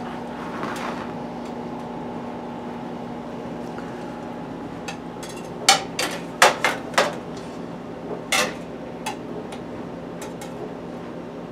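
Metal spatula clinking and scraping against a skillet and a plate as cooked burger patties are lifted out of the pan, with a quick run of sharp clinks about halfway through. A steady hum runs underneath.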